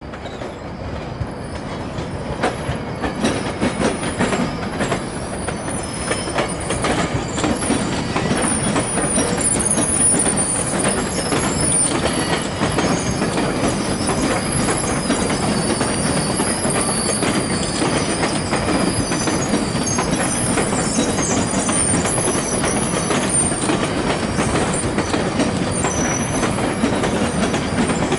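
GO Transit bi-level passenger coaches rolling past over the station tracks and switches: steel wheels running on rail, with a faint, high, wavering wheel squeal. It grows louder over the first several seconds, then holds steady.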